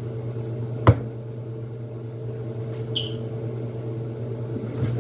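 A metal food can set down on the counter with a sharp knock about a second in, then a short, light clink near three seconds, over a steady low hum.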